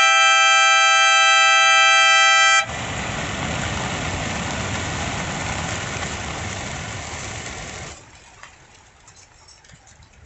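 A steady, loud two-tone air horn for about two and a half seconds, cut off sharply by the dense whirring rush of thousands of homing pigeons' wings as the flock takes off together; the wing noise holds for about five seconds, then drops away to a faint background.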